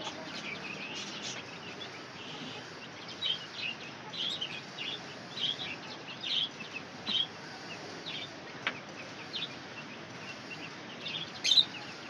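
Chicks chirping: short, high calls coming a few a second, thinning out in the second half, with a single sharp click partway through.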